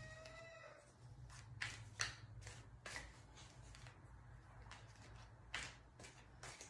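Tarot cards being shuffled by hand: scattered soft clicks and slaps of the cards, faint overall, with a short cluster of them about two seconds in.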